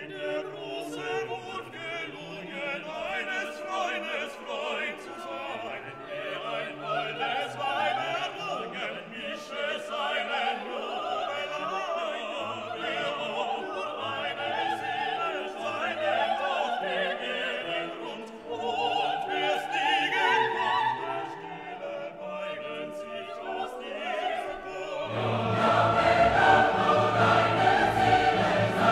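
Background music: classical singing over an orchestra, swelling louder and fuller near the end.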